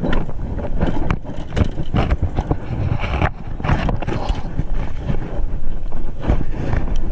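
Wind buffeting the camera's microphone: a loud, irregular rumble that comes and goes in gusts.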